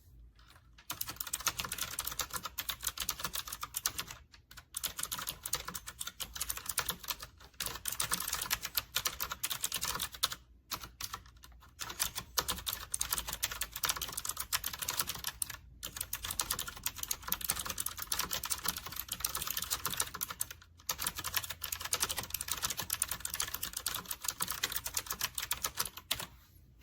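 Fast, continuous typing on a typewriter-style mechanical keyboard, a dense run of clacking keystrokes broken by four brief pauses.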